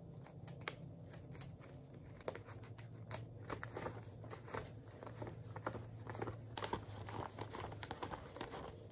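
Paper dollar bills being flipped and counted by hand: a run of quick, crisp paper flicks and rustles, thicker from about three seconds in, over a low steady hum. One sharp snap stands out about a second in.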